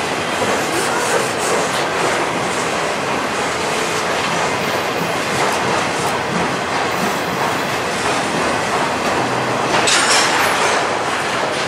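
A train running past on the rails, a steady rolling rumble with wheels clicking over the rail joints, getting briefly louder about ten seconds in.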